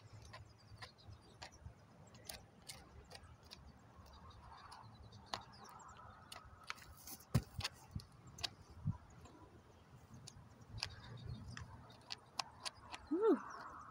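Hoof pick scraping and clicking against a horse's hoof as packed mud and dirt are cleaned out of the sole: an irregular run of small ticks and scrapes, with one louder knock about seven seconds in.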